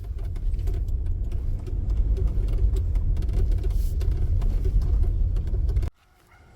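Car driving, a steady low rumble of engine and road noise that cuts off suddenly near the end.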